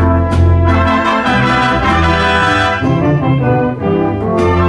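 School wind band playing a full-ensemble pop medley: the brass holds chords over a steady bass line, with drum hits in the first second and again near the end.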